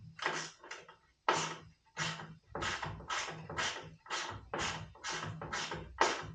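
Rhythmic rasping back-and-forth strokes of a hand tool working material, about two strokes a second.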